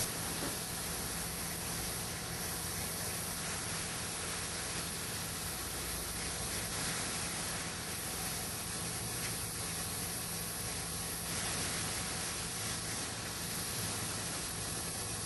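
Steady, even hiss with a faint low hum underneath, unchanging throughout, with no rhythm of sanding strokes.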